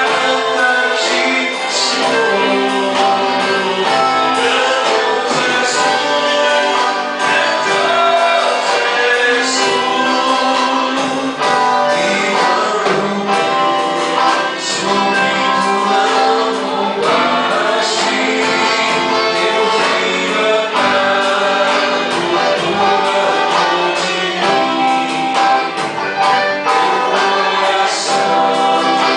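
Church band playing a gospel worship song with voices singing over the instruments, steady and loud throughout.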